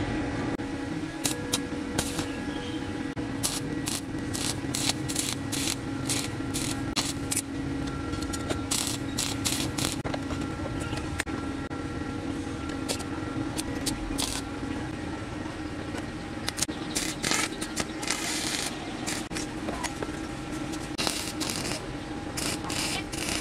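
Stick (arc) welding: short spells of the welding arc crackling as steel pipe legs are tack-welded to a flat-bar frame, the longest near the end. Between them come scattered clicks and knocks of metal pipes and a level being handled, over a steady machine hum.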